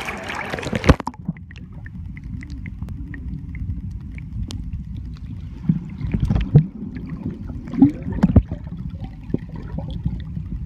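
Sea water heard through an iPhone's microphone as it goes under: a brief splash about a second in, then a muffled low underwater rumble with gurgles, faint clicks and a few dull thumps.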